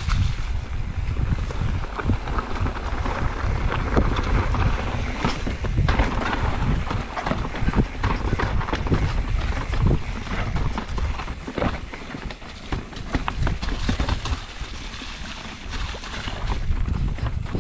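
Mountain bike descending a rocky trail: tyres rolling and crunching over rocks while the bike rattles and clatters with many quick knocks, over a constant rumble of wind on the microphone.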